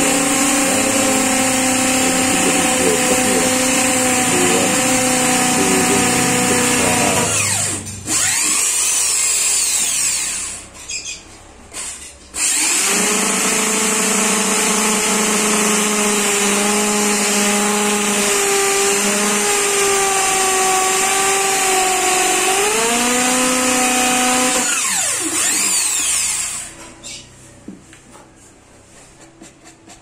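Corded electric drill boring a hole into a wooden lid, its motor whining steadily. It stops briefly a few seconds in, stops again for a couple of seconds near the middle, then runs on and winds down with a falling whine near the end.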